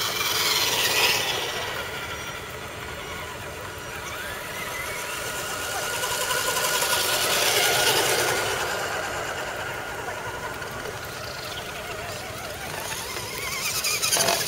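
Scale RC crawler trucks' electric motors and geared drivetrains whining as they crawl through a muddy rut, the pitch sliding up and down with the throttle. It swells louder about a second in, again around the middle, and near the end, as trucks come close.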